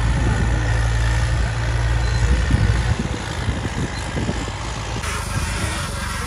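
Tractor diesel engine working under load as it pulls a disc harrow through a soft field, a steady low rumble that eases about halfway through.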